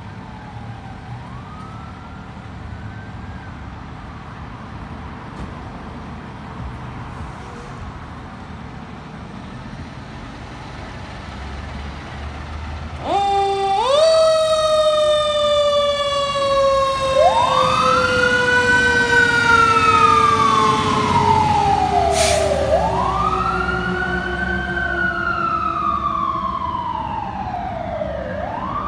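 Los Angeles Fire Department engine rumbling, then about 13 seconds in its sirens come on loudly: one siren tone jumps up and then falls slowly and steadily in pitch, while a second siren wails up and down about every five or six seconds. A faint distant siren sweep is heard near the start.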